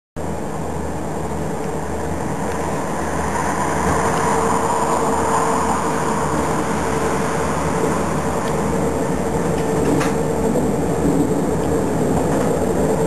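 Diesel shunting locomotive running steadily as it moves along the track, its engine noise continuous with a low hum and a steady whine on top.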